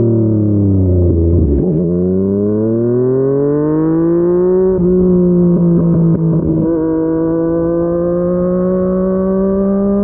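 Yamaha MT-09's inline three-cylinder engine through a Yoshimura R55 slip-on exhaust, heard while riding: the engine note falls as the bike slows, then rises steadily under acceleration. A gear change breaks the note about five seconds in, after which it pulls on with a slowly rising pitch.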